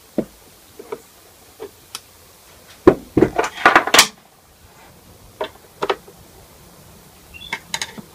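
Scattered knocks and clicks of hands handling a valve radio's wooden cabinet while a fitted part is nudged into straight alignment: a quick run of several knocks about three to four seconds in, then a few single clicks.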